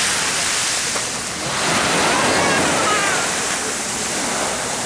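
Sea waves washing onto the shore in a steady rush of surf, swelling and easing, with wind.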